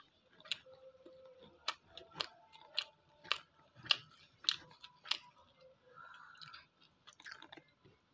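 Close-miked mouth sounds of a person chewing parotta and prawn fry, with sharp wet smacks about twice a second for the first five seconds, then softer chewing.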